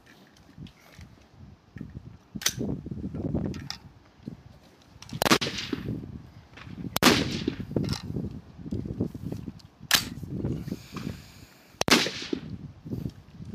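Rifle shots on a high-power rifle firing line: about five sharp cracks, a couple of seconds apart, over low wind rumble on the microphone.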